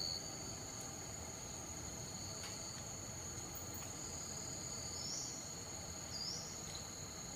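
Steady high-pitched insect chorus of two sustained tones, with a couple of short rising calls about five and six seconds in.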